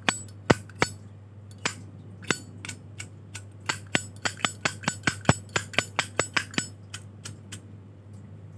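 Zippo lighter lid being flicked open and snapped shut over and over, a run of sharp metallic clinks from the hinge and case. The clinks come slowly at first, then about five a second, and stop about seven and a half seconds in.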